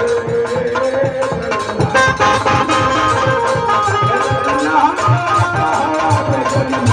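Hindu devotional kirtan: a man's voice singing a long, wavering melody over a PA microphone, accompanied by a dholak drum playing a quick, steady rhythm whose low strokes grow stronger about five seconds in.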